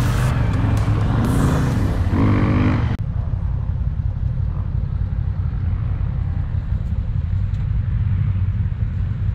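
Motor vehicle engine running, a steady low rumble. The sound changes abruptly about three seconds in, from a fuller, brighter mix to the low rumble alone.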